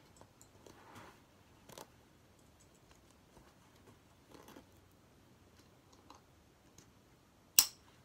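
Soft fabric rustling as a soft structured buckle carrier is handled and adjusted, then one sharp, loud plastic click near the end, typical of the carrier's side-release buckle snapping shut.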